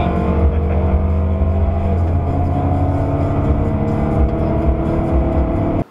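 Engine of the vehicle carrying the dashcam, running steadily at road speed as it follows another car. Its pitch dips briefly about two seconds in, then holds steady.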